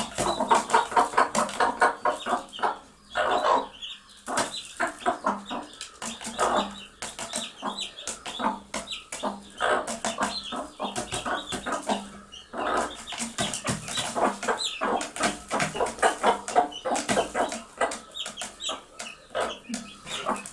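Mother hens clucking in quick, repeated runs, calling their chicks to food.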